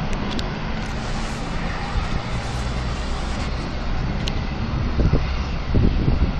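Distant propane tank fire burning with a steady, low, jet-like roar and rumble, with a few sharp clicks.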